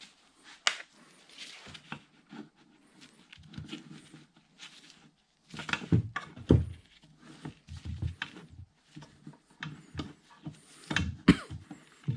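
Handling noise from taking apart a Bridgeport variable-speed head's cast housing on a wooden workbench: the clicks of a T-handle hex key on a set screw, then busier knocks and thunks from about halfway as the housing is shifted and turned on the bench.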